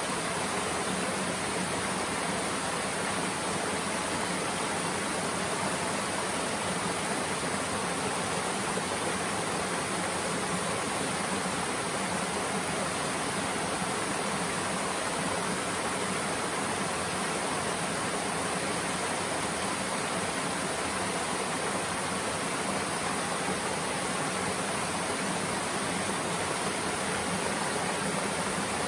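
Small waterfall tumbling over stepped rock ledges into a shallow creek: a steady rush of falling water.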